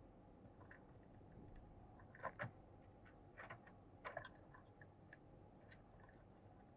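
Near silence with faint hiss, broken by a handful of short sharp clicks, the loudest coming as two quick pairs about two and four seconds in.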